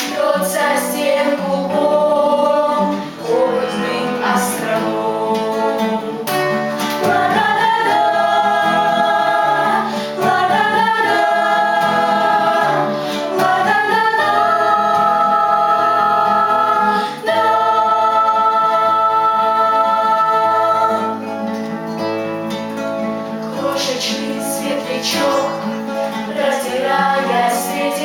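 A vocal ensemble singing a song to acoustic guitar, holding long notes through the middle of the passage.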